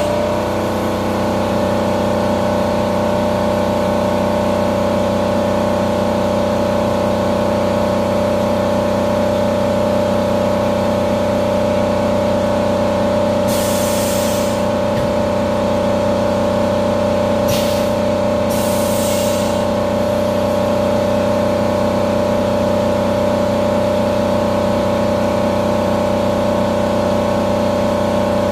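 Haas VF-2 CNC vertical mill cutting metal under flood coolant: a steady whine from the spindle and cutter over the hiss of coolant spray. Short bursts of louder hiss come about 14 seconds in and twice more around 18 to 19 seconds.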